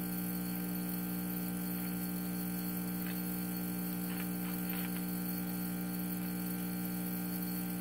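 A 1949 Admiral tube radio, run at about 70 volts on a Variac, giving a lot of steady hum through its speaker while tuned near a station. Faint scraps of a distorted station come through a few times in the middle.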